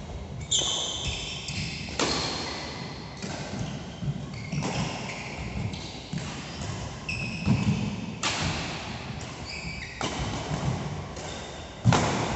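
Badminton rally: sharp cracks of rackets striking the shuttlecock every second or two, the loudest near the end, with short high squeaks of court shoes on the synthetic mat and footfalls between shots.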